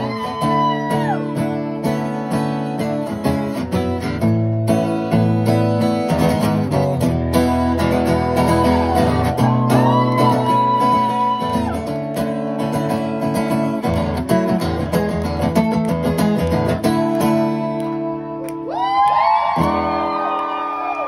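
Steel-string acoustic guitar strummed in a steady rhythm in a live solo performance. Short sung phrases come in around the middle and again near the end.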